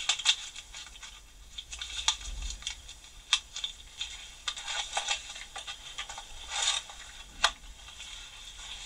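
Small metal hand tools, pin vises, being handled: scattered light clicks, clinks and short scrapes as they are picked up and set down.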